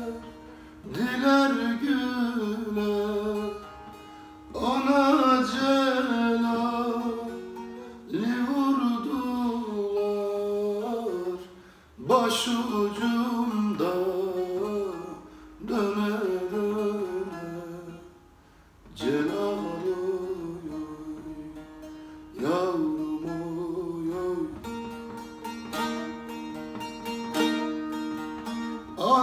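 Bağlama (long-necked Turkish saz) played solo, a folk melody plucked in phrases about three and a half seconds long, each opening with a sharp stroke and dying away.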